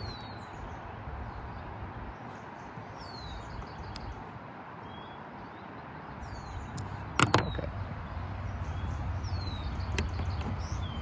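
Small plastic and metal clicks from a depinning tool prying at a terminal in a plastic coil pack harness connector, with a sharper clack about seven seconds in as the pin is worked free. Short falling bird chirps come and go over a steady background hiss.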